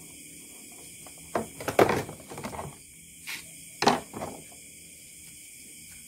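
Short knocks and light clatter of an opened gaming mouse and its parts being handled and set down on a wooden workbench, loudest about two seconds in and again near four seconds.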